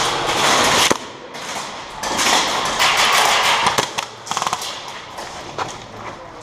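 Airsoft guns firing in bursts of rapid shots, with scattered single sharp pops.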